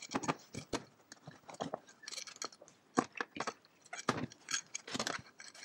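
A rag scrubbing and wiping out old chain lube from a small metal engine housing with solvent. It comes as irregular light scuffs and clicks as the part is rubbed and shifted in the gloved hands.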